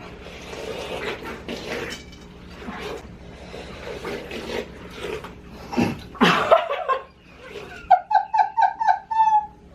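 Wet chewing and slurping of watermelon being bitten into face-first, without hands, with many small crunches. Near the end a burst of laughter, about six quick pitched pulses.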